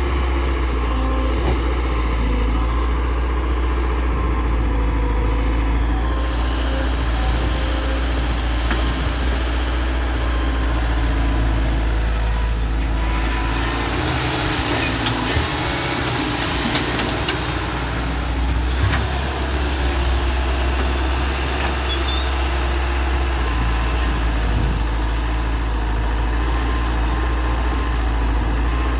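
Heavy diesel engine of a Hyundai excavator running steadily under work, with a low hum throughout. A rushing hiss lasts for several seconds around the middle.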